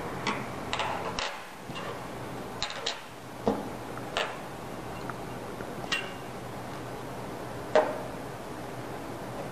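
Small metal hand tools and bearing-press parts being picked up and set down on a workbench: scattered light clinks and knocks, the sharpest a little under two seconds before the end, over a low steady hum.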